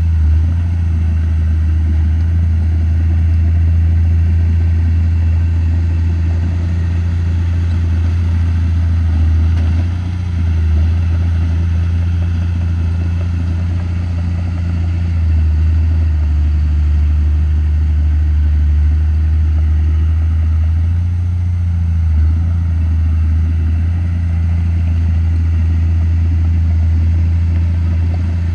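Komatsu D31P bulldozer's diesel engine running with a steady low drone that dips briefly about ten seconds in and shifts pitch again around fifteen and twenty-two seconds in.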